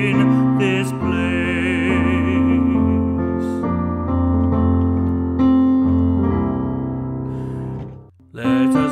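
Hymn music: a voice holds the last sung note of the chorus over keyboard accompaniment, then the keyboard carries on alone with held chords as an interlude. It drops out briefly near the end before the singing comes back in.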